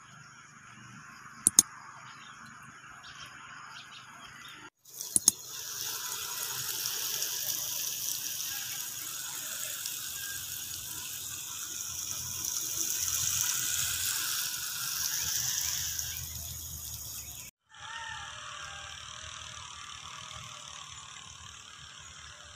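Water spraying from a hand-held hose onto lettuce beds: a steady hiss that swells and eases for about twelve seconds in the middle. Before it there is a quieter outdoor background with two sharp clicks; after it, a faint steady background.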